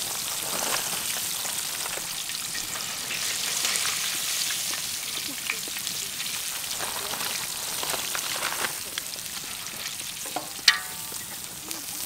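Hot oil sizzling and crackling as battered onion fritters deep-fry in a wok, growing gradually quieter. A short sharp sound near the end.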